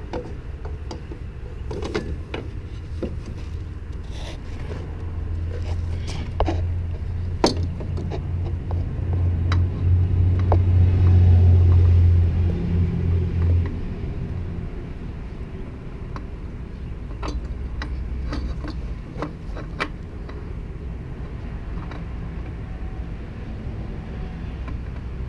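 Low vehicle rumble that swells about a third of the way in and eases again after the middle, with scattered small clicks and scrapes as a new spin-on oil filter is threaded on by hand.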